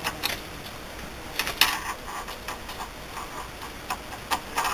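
Screwdriver clicking and scraping inside the spindle bearing bore of a lathe headstock while an oil wick and its retaining wire are pushed into place. The clicks are irregular, with a cluster about a second and a half in and more near the end.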